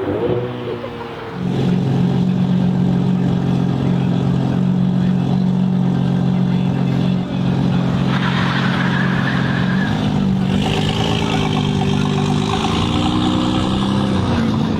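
A car engine running at steady revs with a deep drone, which sets in sharply about a second and a half in; after about ten seconds its pitch shifts up and down in small steps.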